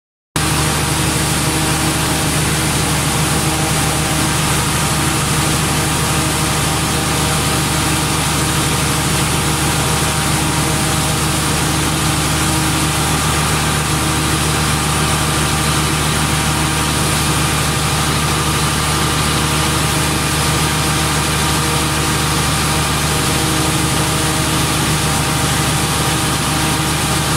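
Cummins 200 kW diesel generator set engine running steadily at its governed 1500 rpm, producing 50 Hz power.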